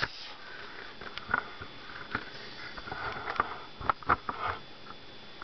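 Scattered small clicks and light handling of an opened plastic Sleepy Sounds nightlight as its button is pushed. The toy gives no voice, only its light, because its speaker has come loose.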